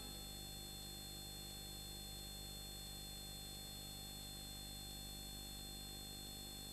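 Faint steady hum and hiss with no other sound: the recording's own background noise.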